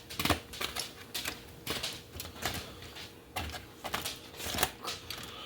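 Irregular sharp clicks and clatters, about fifteen scattered knocks from handling things at a barbecue grill.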